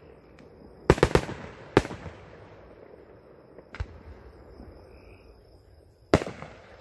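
Aerial fireworks bursting overhead: three quick bangs about a second in, another just after, a fainter pop near four seconds, and a loud bang near the end followed by a brief crackle.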